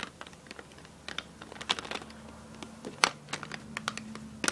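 Plastic makeup containers clicking and clattering against each other as hands rummage through a packed makeup bag: irregular sharp clicks, with a louder knock about three seconds in and another near the end.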